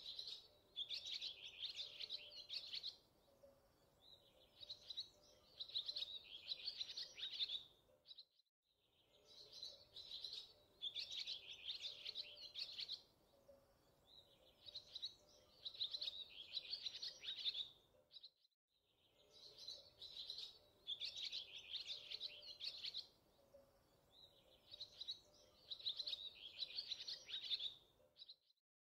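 Birdsong: quick high chirps and trills in a recorded loop about ten seconds long, heard three times with a short silent break between repeats.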